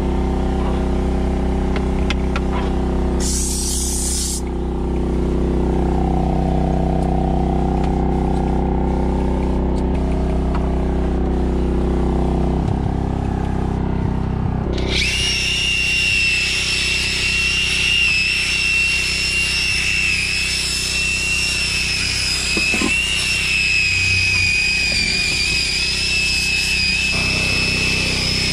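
Cordless drill with a scrub-brush attachment running steadily with a high whine from about halfway through, scrubbing a plastic door sill. Before it, a steady low machine hum, with a short spray hiss about three seconds in.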